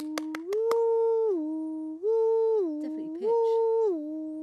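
A person humming a steady tone, switching back and forth between a low note and a higher note, three times up and back down. A few sharp clicks sound in the first second.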